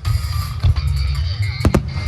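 Music with a heavy drum beat accompanying a fireworks show. Sharp bangs, likely aerial shells bursting, cut through about two-thirds of a second in and twice in quick succession near the end.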